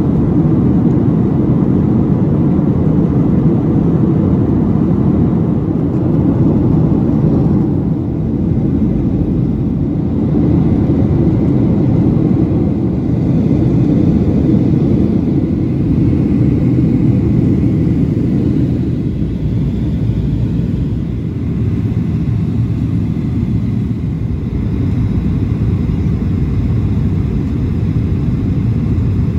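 Cabin noise of a Boeing 737-700 on approach with its flaps extended: a steady low rumble of rushing air and its CFM56-7B engines, easing slightly a couple of times.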